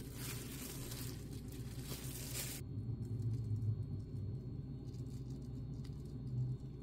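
Plastic cling film crinkling and rustling as it is handled and peeled off, cutting off abruptly about two and a half seconds in; after that only a low steady hum with a faint tick or two.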